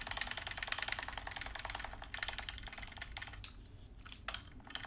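Game controller face buttons mashed with a finger: a rapid run of plastic clicks that thins to a few scattered clicks after about three and a half seconds.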